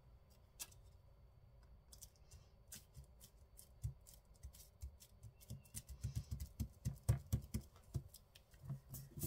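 Scissors snipping paper: a few scattered snips at first, then a quick run of snips in the second half.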